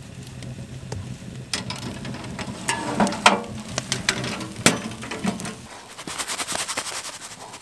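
Cookware being handled: a wooden chopping board and cast iron skillet knocked and clattered several times, with the sharpest knocks a little past the middle. Fast, light crackling follows near the end.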